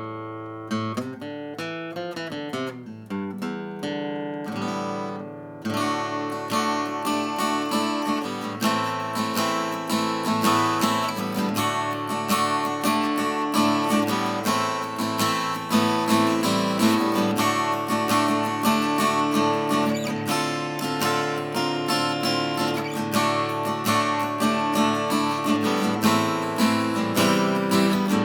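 An S.Yairi YD-303 steel-string acoustic guitar being played: single picked notes at first, then full strummed chords from about five seconds in, continuing steadily.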